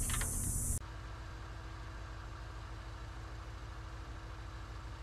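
383 stroker V8 idling steadily with a faint steady whine over the low rumble, running so the alternator is charging during a voltage-drop test. The idle begins about a second in, after a brief high insect hiss.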